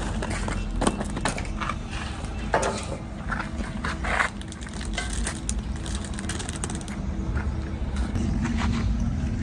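Machinery running with a steady low hum, with scattered clanks and knocks over it, most of them in the first half.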